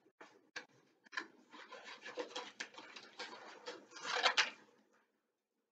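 Scissors cutting gold paper, with the paper crinkling and rustling in the hands; the loudest crinkling comes a little after four seconds, and it stops about five seconds in.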